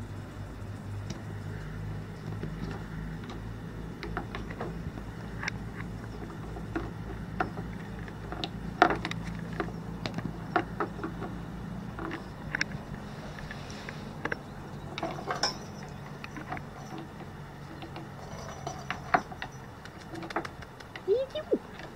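A kitten playing on a woven rug: scattered soft taps, scratches and clicks of paws, claws and a small toy ball, over a steady low hum in the background.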